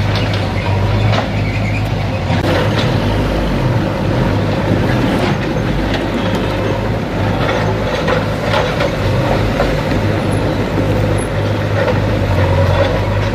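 Steady low engine rumble of a heavy vehicle, with an even hum and a noisy haze over it, and scattered light clicks and rattles.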